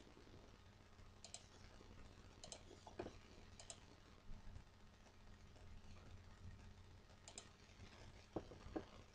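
Near silence: faint, scattered computer mouse clicks, about eight of them, over a low steady hum.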